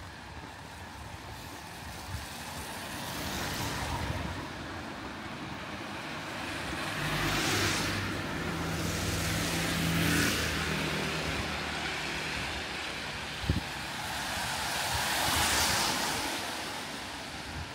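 Cars passing one after another on a wet road, the tyre hiss swelling and fading about four times, with an engine hum under the middle pass. A single sharp knock about three quarters of the way through.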